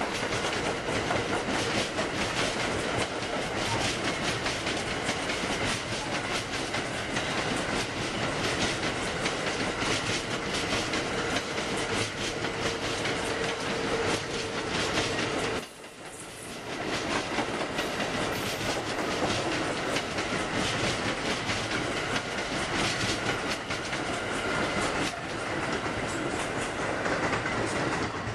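Amtrak Amfleet passenger cars rolling past at speed, their wheels clicking over the rail joints in a steady clatter with a brief dip in loudness a little past halfway.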